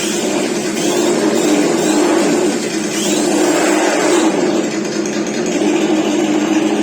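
RC truck sound module playing a simulated engine and exhaust sound through its small speaker, loud and steady.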